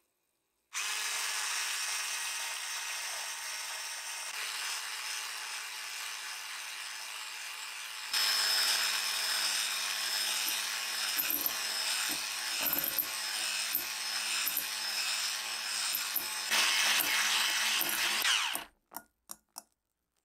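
Electric hand mixer running at high speed, its wire beaters whipping egg whites into Italian meringue in a glass bowl. It starts just under a second in, gets louder about eight seconds in with irregular ticks, then stops near the end and is followed by a few short taps.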